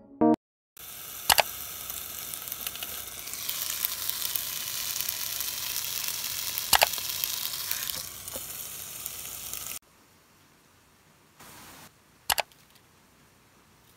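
Chicken breasts sizzling on an electric contact grill: a steady, crackling hiss, with two sharp clicks along the way. The sizzle cuts off suddenly about ten seconds in, leaving a faint hush and one more click.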